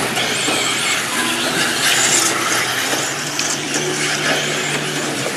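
Electric 1/10-scale RC racing buggies on a clay track, their motors whining high and rising and falling in pitch as they accelerate and brake through the corners.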